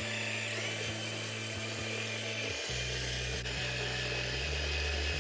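Electric food processor motor running steadily with a high whine, grinding minced mutton with onion paste, herbs and spices into a kebab mixture.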